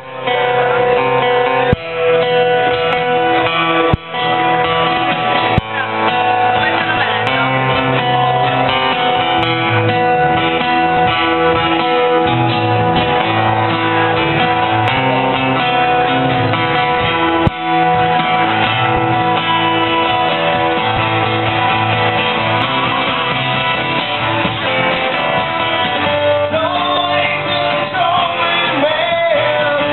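Live acoustic band music: guitars played steadily with a few sharp strummed accents, and a wavering melody line coming in near the end.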